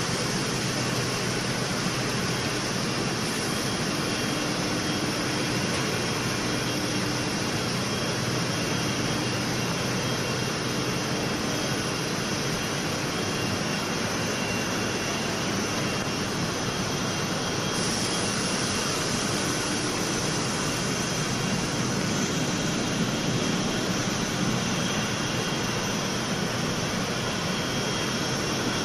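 Softflow jet dyeing machines running in a dyehouse: a steady, even machinery rush with a faint steady whine.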